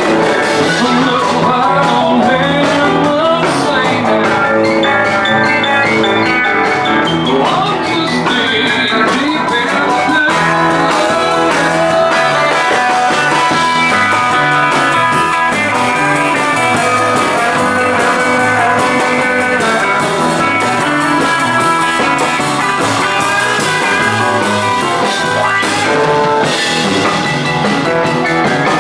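Rockabilly band music with guitar and drums.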